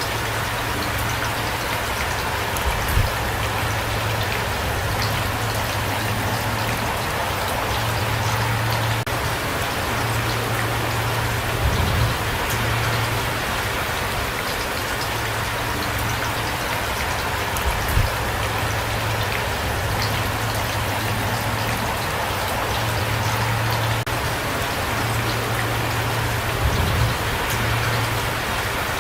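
Steady rain falling and pattering on surfaces, an even hiss of drops, with a few brief low thumps about every six seconds.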